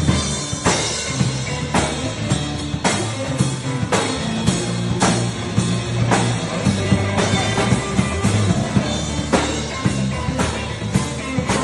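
Rock music with drum kit, bass and guitar. A heavy drum hit lands about once a second over a steady bass line.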